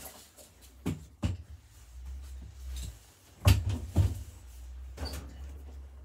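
Beko front-loading washing machine in its wash cycle: the drum turns with a low drone while wet laundry tumbling inside it lands with several dull thuds, the loudest about halfway through.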